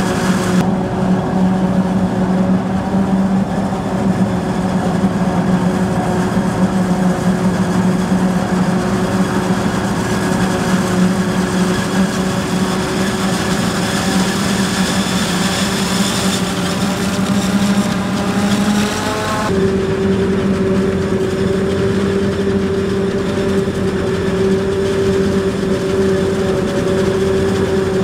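Heavy diesel engines of a maize forage harvester and its tractors running steadily, a loud low hum with overtones; the tone changes abruptly about 19 seconds in.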